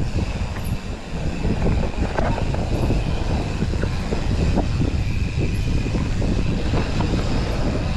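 Mountain bike ridden over a rough dirt trail: steady tyre rumble with frequent knocks and rattles from the bike over bumps, and wind on the microphone of a chest-mounted camera. A faint steady high whine runs under it.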